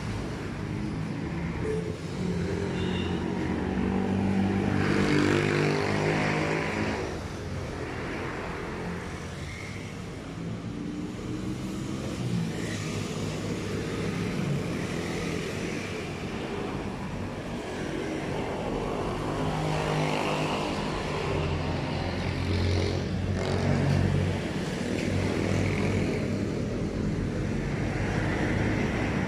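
A motor running at changing speed, its pitch rising and falling, with a hissing noise over it at times.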